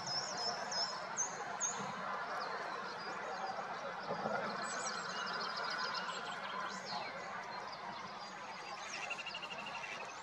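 Wild songbirds calling in the open: a run of short, high, rising notes at the start, more high thin notes about four to five seconds in, and a short fast trill near the end, over a steady background hiss.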